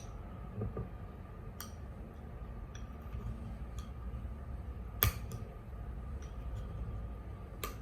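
Eating utensils clicking against a plate several times, with one sharper clink about five seconds in, over a steady low hum.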